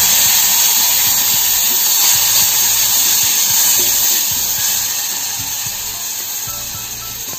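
Wet betel-leaf and tomato paste sizzling in hot tempering oil in a steel pot: a loud, even hiss that slowly fades.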